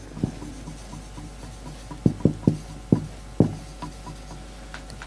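Marker writing on a whiteboard: soft rubbing strokes, with a quick cluster of sharp taps of the tip against the board between about two and three and a half seconds in.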